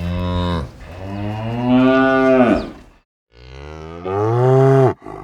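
Cow mooing: two long moos, the first about three seconds and the second about a second and a half, each dropping in pitch as it ends.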